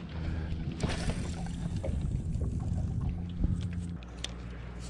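Low steady hum of a bass boat's bow-mounted electric trolling motor running, growing louder about a second in and changing again near the end. A few light clicks sound over it.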